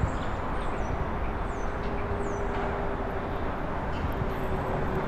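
Steady hum of road traffic, with a few short, high, falling chirps in the first couple of seconds.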